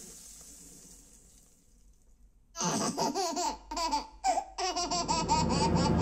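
A baby's giggling and laughter from an animated film soundtrack, played back through a Yamaha YAS-109 soundbar in Virtual X mode. After a fading, near-quiet start, the giggles come in short bursts from about two and a half seconds in.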